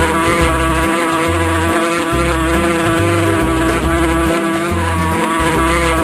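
Wasp buzzing steadily and continuously, over background music with a low bass line.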